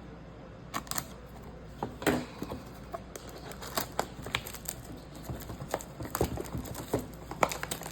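Blaster boxes of trading cards being opened by hand: an irregular run of crinkles, clicks and rips from cellophane wrap and cardboard, starting about a second in.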